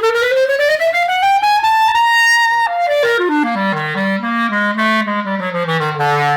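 A student-range Ayson clarinet played solo. The line climbs steadily from the low register to a high note held briefly about two seconds in, then steps back down in a descending run to a low note near the end.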